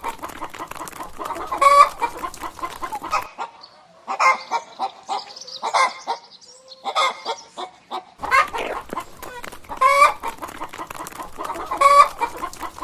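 Chickens clucking, with loud short calls every second or two. The sound changes abruptly about three seconds in to a thinner, higher stretch of clucking, then switches back about eight seconds in.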